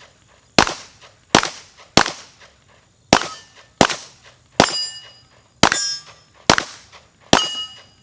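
Handgun firing a string of nine shots at an uneven pace, roughly one every 0.6 to 1 second. From about three seconds in, each shot is followed by a brief metallic ringing.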